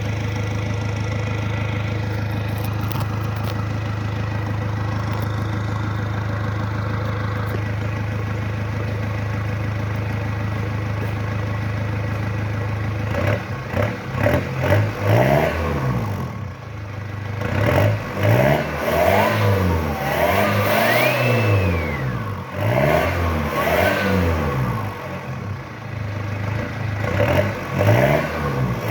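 Car engine idling steadily, then from about halfway revved in repeated short blips. A whistle from a turbocharger-style whistle fitted on the exhaust rises and falls in pitch with each rev.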